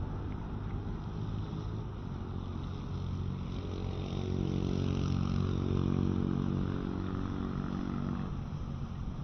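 An engine passing by: its hum swells from about three seconds in, is loudest in the middle, and fades away near the end, over a steady low rumble.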